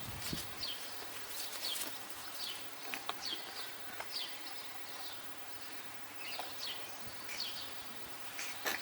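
Small birds chirping again and again: short, high chirps that fall in pitch, with a few faint clicks among them.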